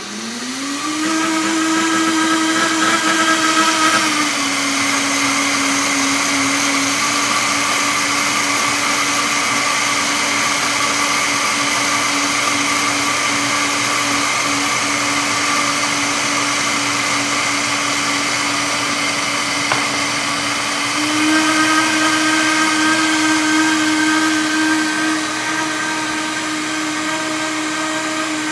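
Vitamix blender motor running on high, blending a thick mix of raw cashews, beans and broth. Its whine spins up in the first second, drops slightly in pitch about four seconds in, and climbs back up about two-thirds of the way through.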